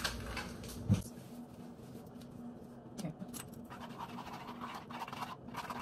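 A utensil scraping and stirring inside a saucepan of mashed potatoes, a dense run of quick scratchy strokes. A single sharp knock comes about a second in.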